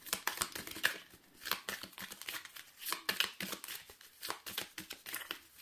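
Oracle cards being handled: light rustling with many small, sharp clicks and scrapes.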